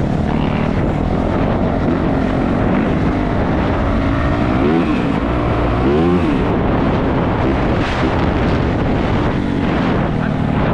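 450cc four-stroke dirt bike engine running under way, with wind noise on the microphone; the engine revs up and back down twice around the middle.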